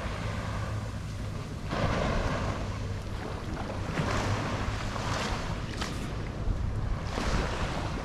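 Small waves washing onto a sandy beach, swelling a few times, with wind buffeting the microphone and a steady low hum underneath.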